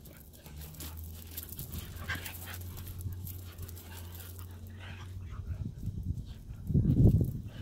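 Siberian husky puppy and an adult husky play-wrestling and vocalising at each other, with the loudest sound a short burst about seven seconds in.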